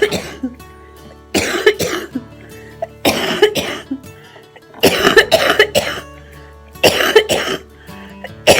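A woman with cystic fibrosis coughing up mucus, in about five loud bouts of two or three coughs each, a second or two apart. Steady background music plays underneath.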